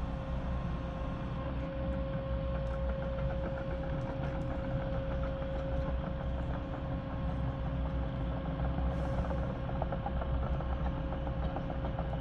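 Steady low rumble of drilling-rig engines and machinery, with a constant tone held through it.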